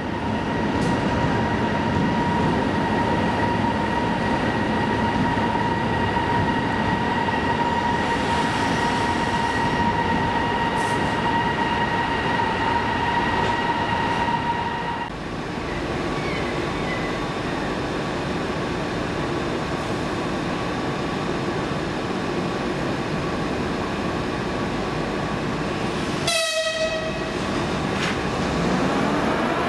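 Locomotives running at a station platform: a steady high whine cuts off abruptly about halfway through, leaving a lower steady hum. Near the end an EP2K electric locomotive draws near with a rising whine.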